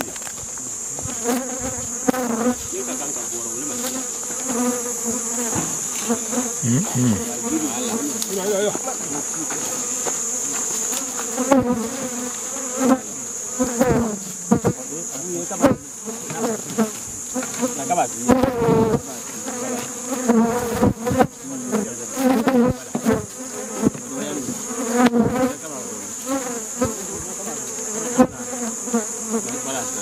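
Honeybees buzzing in numbers around an opened traditional grass-wrapped basket hive, with a steady high-pitched hum above the buzz and scattered knocks from the hive being handled.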